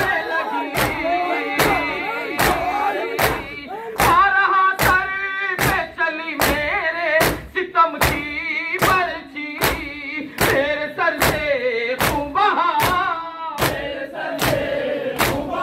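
A group of mourners chanting a Urdu nauha (lament) together, with matam: many hands striking chests in unison in a steady beat, a little more than once a second.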